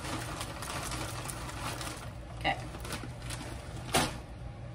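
Frozen mixed vegetables shaken from a plastic bag into a pan: a dense rattle of the pieces and crinkle of the bag for about two seconds, then two sharp clicks, the second and louder near the end. A steady low hum runs underneath.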